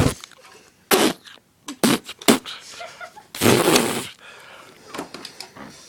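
A person coughing and spluttering: a few short, sharp bursts, then a longer harsh one about three and a half seconds in.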